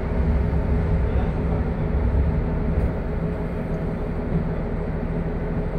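A Noto Railway NT200 diesel railcar idling at a standstill: a steady low engine hum with a rumble that swells briefly twice.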